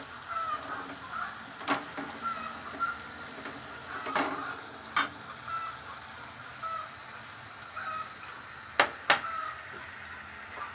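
Metal spatula scraping and knocking against a steel kadhai while stirring thick wheat-flour halwa, with several sharp clanks spread through.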